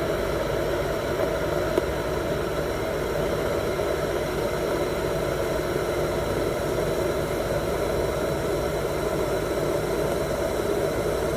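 Electric kettle heating water: a steady hissing rumble of the water warming toward the boil.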